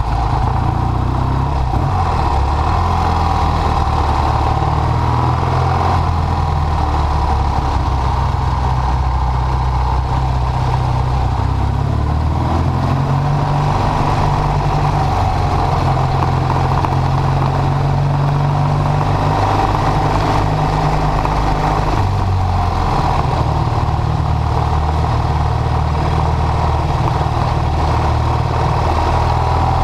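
Triumph Bonneville parallel-twin engine running steadily at low revs while the motorcycle rolls slowly along, heard from on the bike. The engine note shifts slightly a few times with the throttle.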